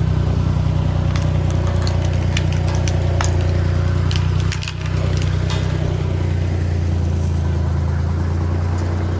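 Road roller engine running steadily, with scattered sharp cracks and snaps over roughly the first five seconds, typical of the roller crushing the car body beneath it.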